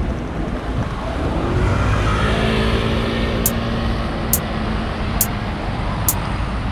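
Busy city street traffic: cars, taxis and motor scooters driving past in a steady hum of engines and tyres. One vehicle's engine rises and falls in pitch as it pulls past, from about one and a half seconds in. Light sharp ticks come about once a second in the second half.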